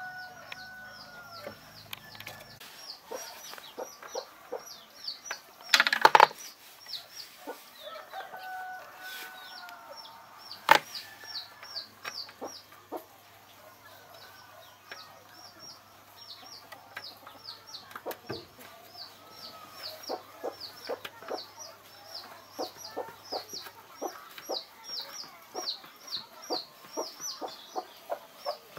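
Chickens clucking and chirping: a steady stream of short, high calls with lower clucks coming thick and fast in the second half. Two sharp knocks stand out, about six and eleven seconds in.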